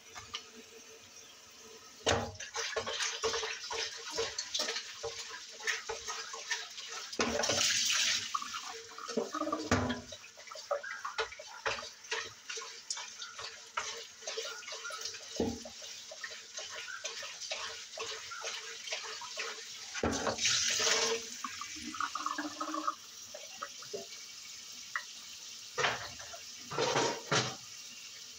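Dishes being washed in a stainless-steel kitchen sink: many clinks and knocks of dishes and utensils, with the tap running in short spells of splashing water.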